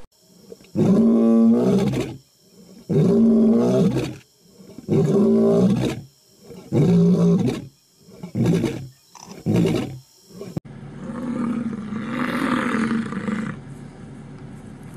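Lion roaring: a bout of six calls, each shorter than the one before. About ten and a half seconds in it cuts abruptly to a rougher, drawn-out low grunting bellow from a bison.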